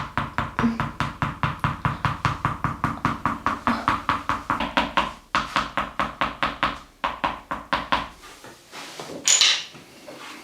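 Fast rhythmic percussive strikes on the body, about five a second, as in percussion-massage tapping, running in bursts that break off about eight seconds in. A short rush of noise follows about nine seconds in.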